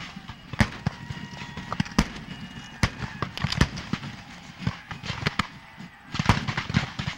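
Black-powder rifle-muskets firing blanks in a reenacted Civil War battle: about a dozen sharp reports at uneven intervals, some from closer and louder, with a quick cluster of shots near the end.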